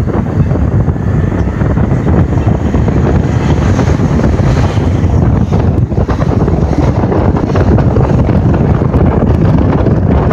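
Loud wind buffeting on the microphone, a dense steady rumble that cuts in suddenly just before this point.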